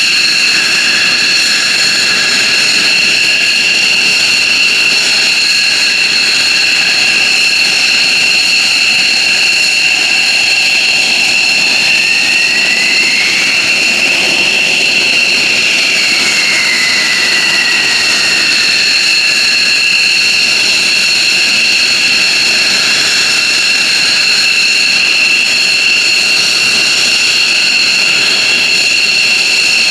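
F-15J Eagle fighter's jet engines running on the ground with a loud, steady high-pitched whine. About halfway through, a second whine rises in pitch and then falls back.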